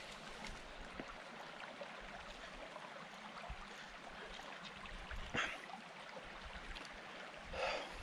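Faint steady rush of a small stream while a person drinks from a water bottle, with two short breaths, one a little past the middle and one near the end.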